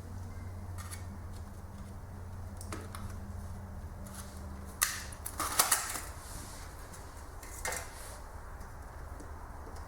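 Clicks and a short clatter of metal engine parts and tools being handled, loudest about five to six seconds in, over a steady low hum.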